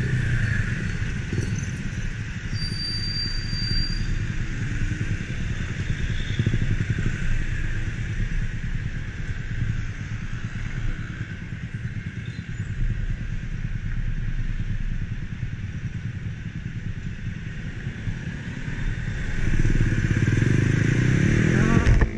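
Yamaha Mio scooter's small engine running while riding at low speed, with road noise. It gets louder in the last few seconds as the scooter speeds up.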